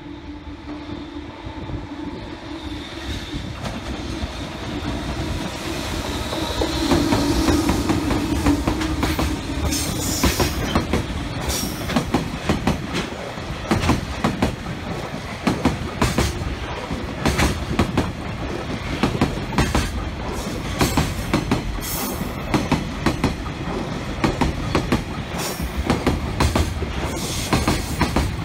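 Freight train passing close by. The sound builds as the electric locomotive approaches and goes by, then a long string of loaded container wagons rolls past with a regular clickety-clack of wheels over the rail joints.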